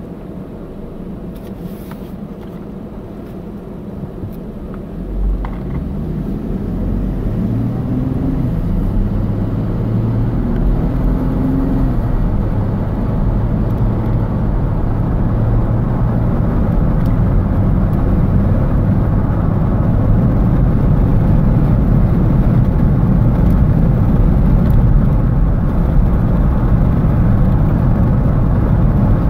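Car heard from inside its cabin, idling and then pulling away about five seconds in. The engine rises in pitch as it accelerates, then settles into steady engine and road noise at cruising speed.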